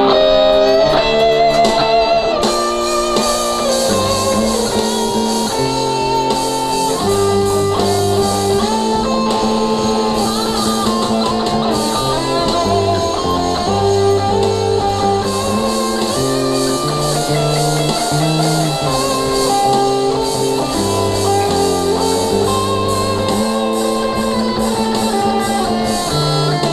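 Playback of a rough home-recorded multitrack mix, recorded straight into a computer's onboard sound card without a mixer. Two guitars are panned left and right, with bass guitar and drums in the centre. The playing is loose and somewhat messy.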